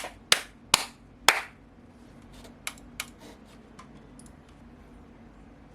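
Single keystrokes on a GMMK Pro mechanical keyboard with Akko CS Ocean Blue switches and an aluminium plate: four sharp, loud clacks in the first second and a half, then a few softer taps about two to four seconds in.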